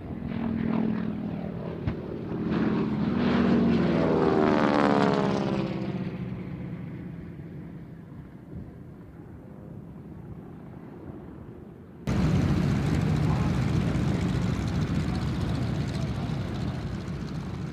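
A propeller-driven warbird passes low, its engine note loud and falling in pitch as it goes by, then fading. About twelve seconds in, a sudden cut to the steady sound of a replica Zero's radial engine as it taxis.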